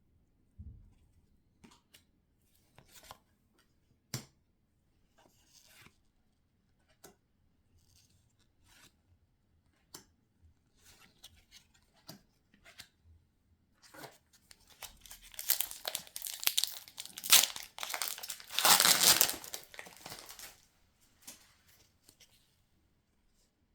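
Foil wrapper of a Pokémon booster pack being handled: scattered soft rustles and ticks, then loud tearing and crinkling for about five seconds past the middle as the pack is ripped open.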